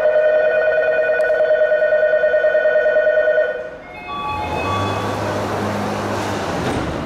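A steady electronic door-closing warning tone sounds for about three and a half seconds, then stops. The train's sliding doors then close with a broad hiss and a low hum.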